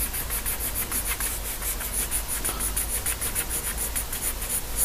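Graphite pencil scratching across drawing paper in quick, evenly repeated back-and-forth hatching strokes, shading in a tone.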